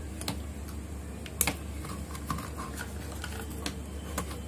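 Insulation being stripped from a thin hookup wire by hand: a handful of small sharp clicks and snips, the loudest about a second and a half in, over a low steady hum.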